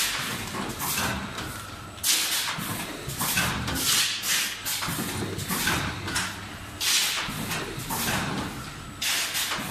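Automatic sachet packing machines running, with short sharp hisses of released compressed air repeating irregularly about every half second to a second over a low machine rumble.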